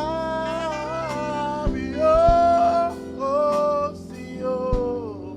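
Live gospel praise music: a lead melody of long, sliding held notes over sustained keyboard chords, with a few drum hits.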